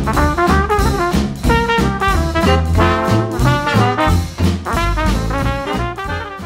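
Big-band swing music with brass over a steady beat, easing off near the end.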